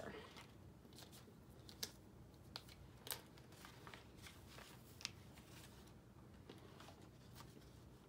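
Faint handling of a handmade paper junk journal: the pages and a large cardstock tag rustle, with a few small sharp ticks and taps scattered through.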